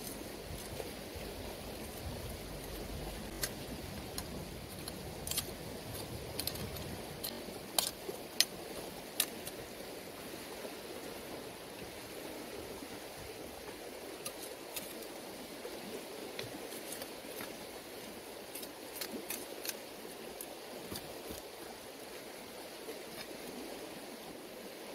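Metal hand hoe scraping and chopping into stony soil, with scattered sharp clicks of the blade and stones knocking together, coming in clusters over a steady background hiss.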